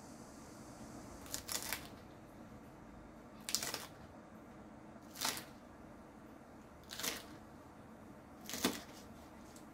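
Kitchen knife chopping a green onion into thick pieces on a wooden cutting board: five separate cuts, one about every one and a half to two seconds.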